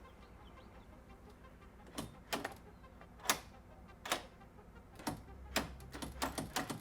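Irregular sharp clicks and knocks, about a dozen starting two seconds in and coming faster near the end, from a newly fitted mortise lock and its door hardware being handled and worked.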